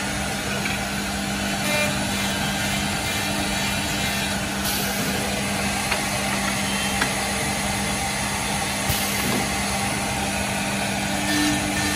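Holztek single-head CNC horizontal boring machine for wood running with a steady mechanical hum, with a few light clicks along the way.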